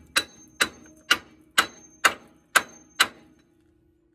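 Hammer striking a metal suspension part, seven sharp blows at about two a second, each leaving a short metallic ring. The ring after the last blow fades out near the end.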